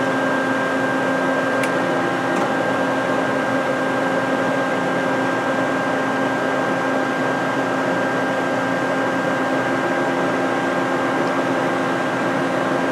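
Peerless 18 x 20 tilting-head vertical band saw running with nothing being cut: a steady motor and drive hum with a high tone over it.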